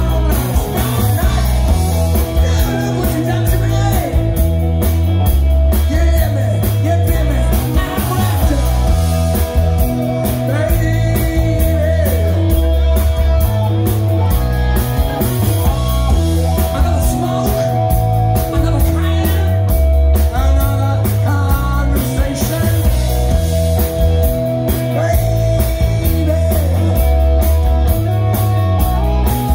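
Live rock band playing: electric guitars, bass, drums and keyboard, with a male lead singer. The mix is loud and heavy in the bass.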